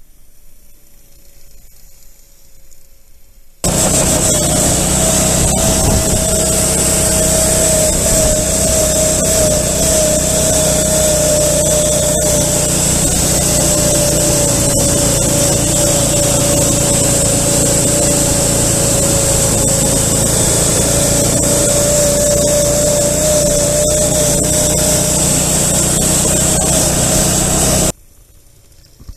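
Small engine of a children's snowmobile running at a steady speed, heard from on board the sled: a loud, even engine drone with a high whine and noise from the track. It cuts in about four seconds in and stops suddenly near the end. Before and after it, the engine is heard fainter.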